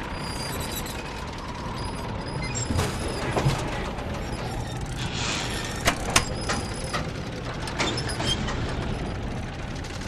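Biplane engine droning steadily under a rush of wind. A handful of sharp mechanical clicks and knocks fall between about three and eight seconds in.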